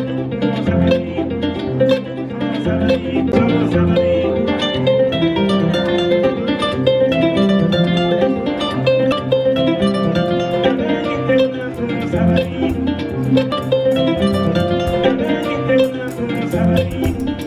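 Kora, the West African gourd-bodied harp-lute, being played: a continuous stream of quick plucked notes over repeating low bass notes.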